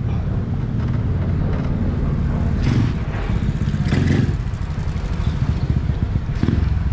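A small engine running steadily at idle, with a few short metallic knocks of tools being handled.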